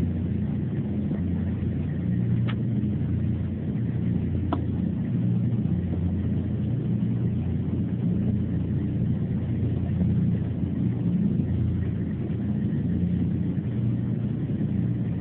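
Steady low engine rumble, with a couple of faint clicks a few seconds in.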